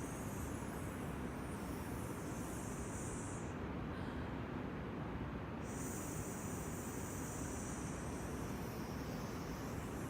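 Long, slow breaths, heard as a drawn-out hiss: one breath fades out about three and a half seconds in and the next starts near six seconds and runs on, over a steady low rumble.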